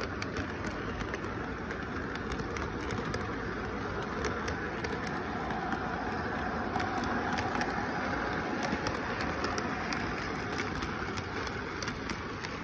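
Model train with intermodal cars rolling past on its track: a steady rumble of the motor and wheels, with frequent light clicks, a little louder as the middle cars go by.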